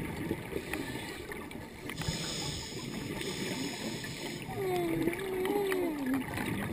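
Underwater ambience through a diving camera's housing: a constant low crackle, a scuba regulator's hiss as the diver breathes in from about two seconds in, then a long wavering low moan near the end.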